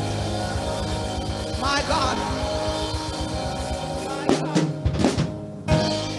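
Live gospel band playing: keyboard and bass guitar hold a sustained chord under a fast run of drum-kit hits, which eases off about four seconds in.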